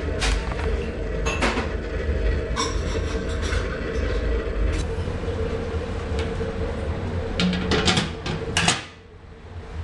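Drip-feed waste oil heater burning with a steady low rumble. Sharp clicks and knocks come now and then, several together about eight seconds in, and the rumble dips near the end.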